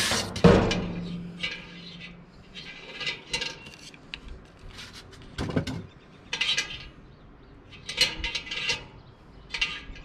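Cast iron Dutch oven being handled: a sharp knock with a short low metallic ring about half a second in, then scattered scrapes and clinks as the wire bail handle is swung and rubbed against the pot.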